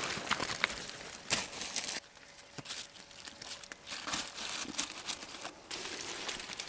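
Dry leaves and twigs rustling and crackling with irregular sharp snaps as someone pulls mushrooms off a rotten log and pushes through forest undergrowth; the loudest snap comes about one and a half seconds in.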